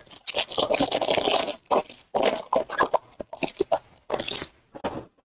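Foil wrapper of a trading-card pack crinkling as it is torn open, in a string of crackling bursts, the longest lasting over a second near the start.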